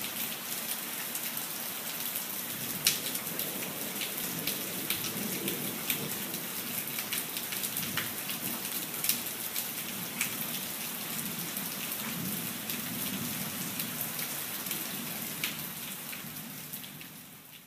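Steady rain with scattered sharp drop clicks, fading out near the end.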